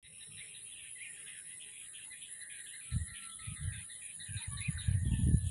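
Rural outdoor ambience: birds chirping over a steady high hiss. From about three seconds in, uneven low rumbles of wind on the microphone grow louder.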